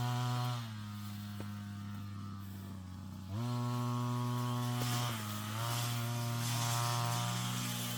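Brush cutter engine running, its speed and strength rising and falling as the throttle is eased off and opened again: it drops back about half a second in and opens up again about three seconds in.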